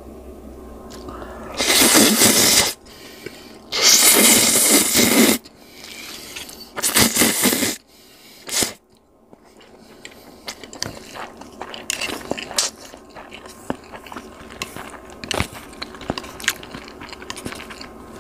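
Noodles with cabbage and chili pepper dadaegi being lifted and tossed in an earthenware ttukbaegi pot: three loud spells of wet squishing and scraping in the first eight seconds, then lighter scraping and small clicks of chopsticks against the pot.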